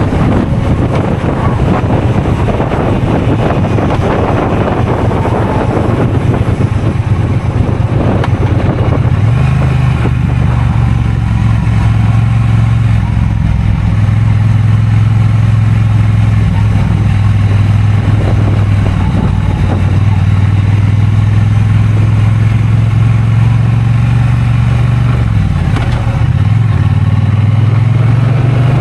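2023 Triumph Bonneville T120 parallel-twin engine running steadily, with heavy wind rushing over the microphone. The engine note drops and shifts briefly near the end, then picks up again.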